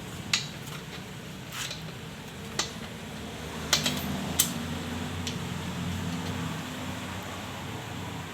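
A handful of sharp knocks and clicks of hard objects being handled, over a steady low hum.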